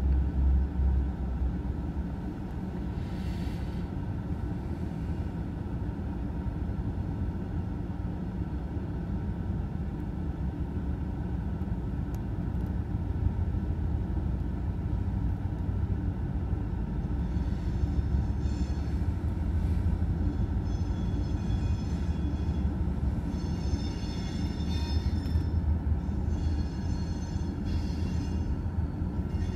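CSX freight train passing a grade crossing: diesel locomotives and then a string of gondola cars, making a steady low rumble. In the second half a high-pitched ringing comes and goes over the rumble.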